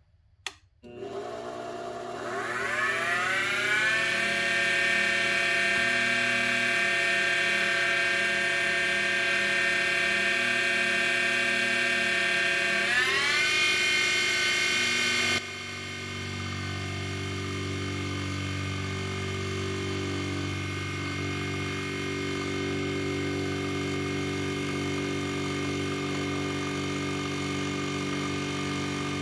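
WEN 33013 benchtop mini mill spinning up with a rising whine about a second in, then running steadily. Its pitch climbs again midway, and a few seconds later the sound changes suddenly to a quieter, lower steady hum.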